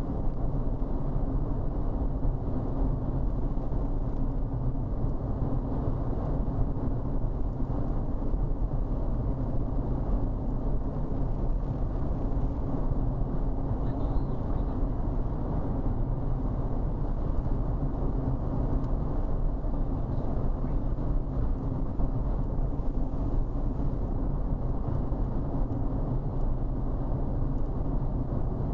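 Steady road and engine noise of a car cruising at highway speed, heard from inside the cabin: a low, even rumble of tyres and engine.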